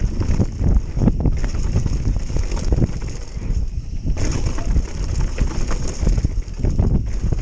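Mountain bike riding fast down a dirt trail: wind buffeting the camera's microphone as a steady rumble, with tyres on loose dirt and frequent knocks and rattles from the bike over bumps.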